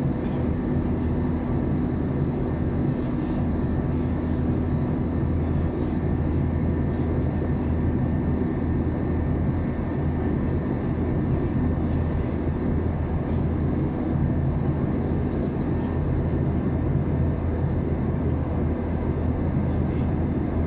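Steady cabin noise of an Airbus A321 airliner in flight: a constant low drone of engines and airflow with a steady hum, unchanging throughout.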